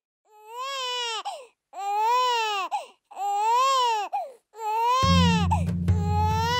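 Infant crying in four long wails, each rising and then falling in pitch, with short breaks between them. About five seconds in, a low steady music drone comes in under the fourth wail.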